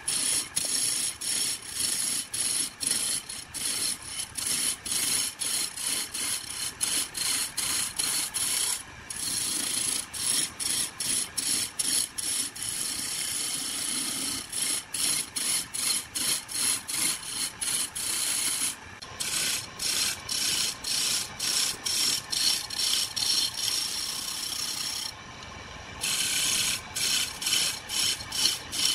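Lathe chisel cutting into a spinning wooden blank: a rasping scrape that comes in quick regular pulses. It breaks off briefly a few times as the tool leaves the wood.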